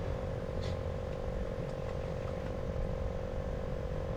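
A steady, pulsing trill from a chorus of frogs, over a low rumble.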